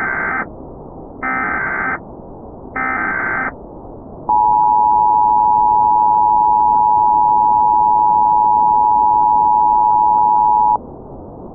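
Emergency Alert System broadcast: three short buzzing SAME header data bursts about a second and a half apart, then the two-note EAS attention tone held steadily for about six and a half seconds before cutting off, over a constant hiss.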